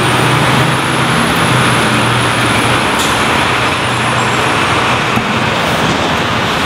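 City transit bus engine running amid street traffic, a steady dense rumble. A thin high whine rises at the start, holds, and fades out about five seconds in.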